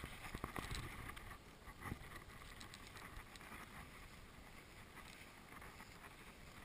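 Faint steady outdoor wind noise, with a few soft steps and rustles in the first two seconds from walking through dry marsh grass.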